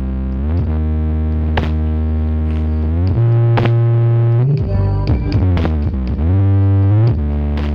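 Loud electronic music with long, deep held bass notes that step between pitches and a few sharp percussion hits, played through a large sound system with banks of subwoofers during a sound check.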